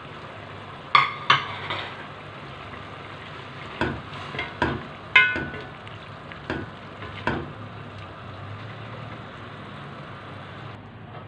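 A cooking spoon stirring chicken and vegetables in an aluminium pot, knocking sharply against the pot's sides several times, over a steady sizzle from the simmering food. The higher part of the hiss drops away near the end.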